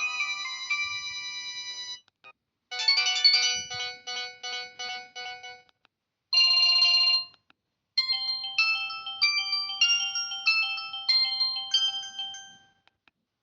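Samsung E1080i mobile phone playing its built-in ringtones one after another, with short gaps between them. First a held electronic chord, then a quick run of notes, a short warbling tone about six seconds in, and finally a stepping melody over a steady held note.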